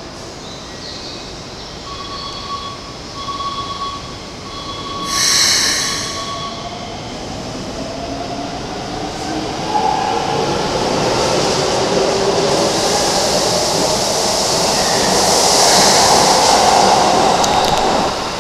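Keikyu 1500-series local train pulling into the platform. A few short beeps sound in the first few seconds and a brief hiss about five seconds in; then the train's running noise grows louder as it rolls in, with a high wheel squeal loudest over the last few seconds.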